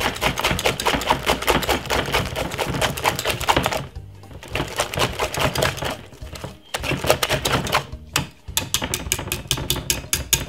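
Wire whisk beating sponge cake batter in a glass mixing bowl: a rapid, rhythmic clicking of the wires against the glass. It stops briefly three times, about four, seven and eight seconds in.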